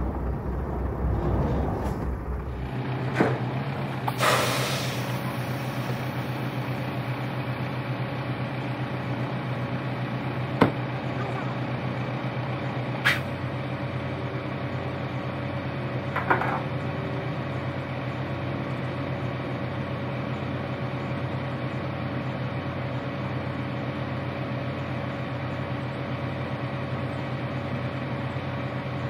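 Diesel semi-truck engine running as the tractor moves, settling to a steady idle about three seconds in. About four seconds in there is a short hiss of air from the truck's air brakes. After that the idle runs on, with a few single sharp clicks.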